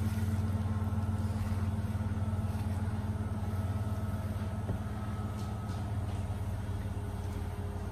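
A steady low hum from a running motor, even throughout, with faint soft clicks from hands mixing marinade a few seconds in.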